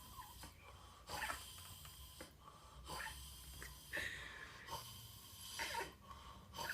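A person snoring, a loud breath about every second and a half.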